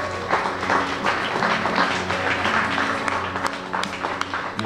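Audience applauding with many hands clapping, over quiet background music with steady held notes.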